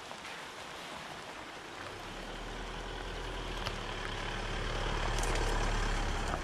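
Isuzu D-Max ute's turbo-diesel engine idling along as the vehicle approaches slowly and drives past, its low hum growing steadily louder to its loudest near the end, with tyres crunching over the wet dirt track.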